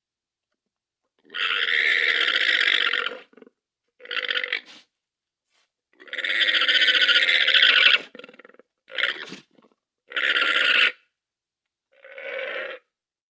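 Llama calling six times: two long drawn-out calls of about two seconds each and four shorter ones, separated by pauses.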